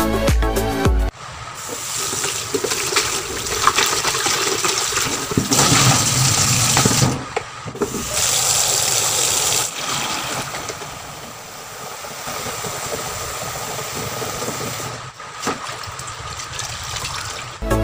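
Kitchen tap running water, splashing on a cloth in a stainless steel sink and then filling a plastic bucket; near the end, a cloth sloshing and being squeezed in soapy water in the bucket.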